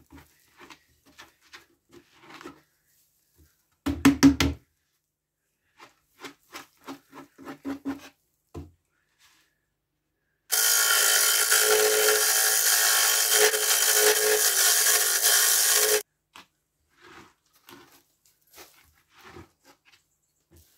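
Hands rustling and pulling wood shavings out of a hollow wooden vessel on a lathe, with scattered knocks and a quick run of loud knocks about four seconds in. About halfway through, a loud steady hiss starts, lasts about five seconds and cuts off abruptly.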